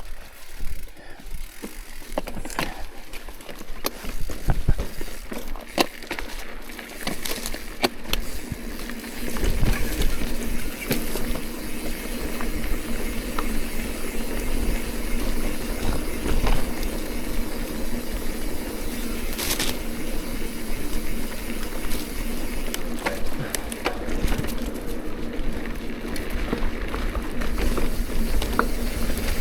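Mountain bike on an overgrown dirt trail: scattered clicks and scrapes for the first several seconds, then from about nine seconds in the steady rattle and tyre noise of riding, with a low rumble.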